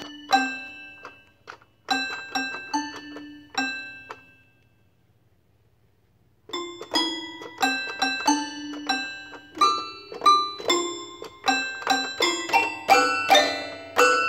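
A child playing single notes on a toy piano, each note struck and ringing out. The notes come slowly at first, stop for about two seconds in the middle, then return faster and busier, with several notes overlapping near the end.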